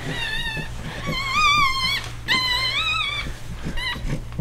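Newborn French Bulldog puppy crying: three long, high, wavering squeals, then a short one near the end.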